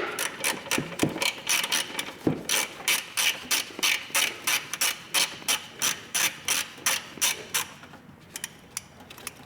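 Hand ratchet wrench clicking in a quick, even rhythm, about four clicks a second, as a bumper bolt is backed out. Near the end the clicking thins to a few scattered clicks.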